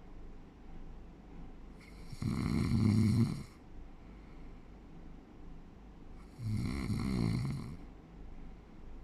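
A sleeping person snoring: two snores about four seconds apart, each a little over a second long, a low rumble with a breathy hiss above it.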